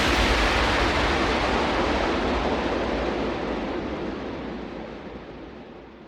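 Closing wash of noise from an electronic trance track: a hissing sweep with a low rumble underneath, getting duller and quieter as its high end is filtered away, fading out as the music ends.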